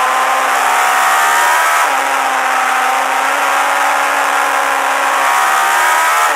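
Suzuki GSX-R1000 JSB1000 race bike's inline-four engine running at high revs under throttle. Its pitch climbs, dips slightly about two seconds in, climbs again, then falls sharply near the end.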